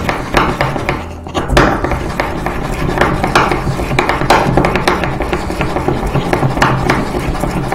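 Ceramic pestle grinding a clove with a little olive oil against the inside of a ceramic mortar: repeated irregular scraping and rubbing strokes with light knocks of ceramic on ceramic.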